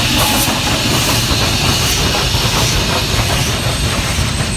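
Union Pacific Big Boy steam locomotive passing close by: a loud, steady hiss of steam over the low rumble of the engine and its wheels on the rails.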